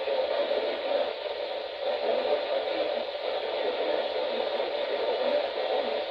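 Weather radio receiver hissing with steady static, its sound cut off in the highs and lows like a small radio speaker: a weak broadcast signal.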